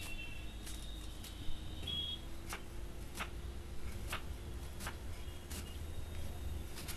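Kitchen knife chopping a spring onion bulb on a wooden board: about ten sharp taps of the blade against the board, spaced unevenly, over a faint steady hum.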